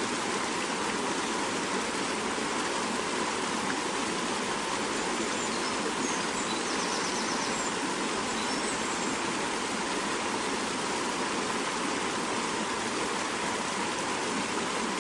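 Swift mountain river flowing steadily: an even, unbroken rush of fast water.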